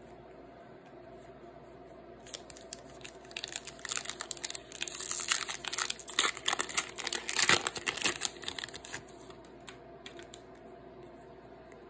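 Foil wrapper of an NBA Hoops Premium Stock trading card pack crinkling and tearing as it is ripped open by hand. A dense run of crackles starts about two seconds in and dies away about nine seconds in, loudest in the middle.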